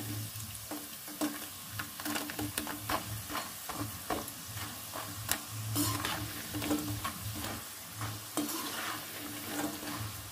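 Besan-coated peanuts sizzling in hot oil in a kadhai, with frequent sharp clicks and scrapes as a perforated metal skimmer stirs them against the pan. The oil is still foaming and bubbling, the sign that the peanuts are not yet fully fried.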